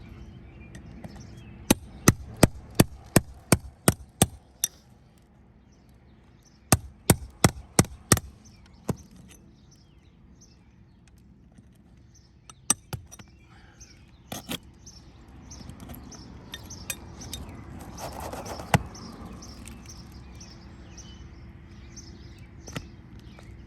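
Hand hammer striking on a shingle roof: a quick run of about ten blows, roughly three a second, then after a pause a run of six more, then a few scattered single strikes.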